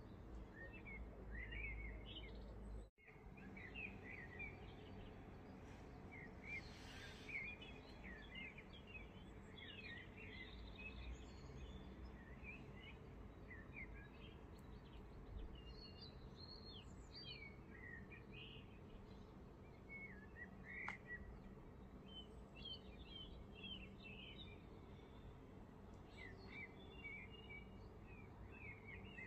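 Faint birds chirping, many short calls over a low steady background noise, with a brief dropout about three seconds in.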